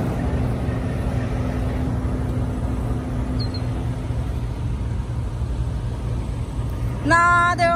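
Steady low rumble of vehicle engines, with a faint steady hum through it. Near the end, a short loud pitched vocal sound.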